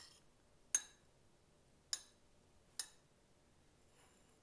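A utensil clinking lightly against a dish three times, about a second apart.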